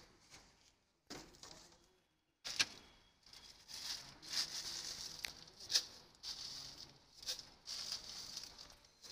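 A hand rummaging in a plastic-lined sack, a dry rustling and crinkling with a few sharp clicks. It comes in short pieces broken by silences at first, then runs on continuously from about two and a half seconds in.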